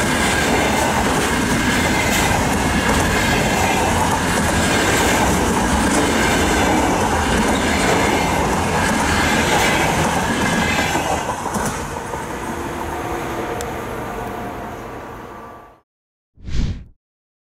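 Container wagons of a freight train rolling past on the rails, a loud, steady rolling noise of wheels on track that fades from about twelve seconds in and cuts off suddenly at about sixteen seconds. A short burst of sound follows, then silence.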